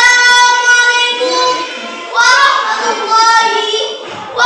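A young girl's voice singing in two long, held melodic phrases, the second starting about two seconds in.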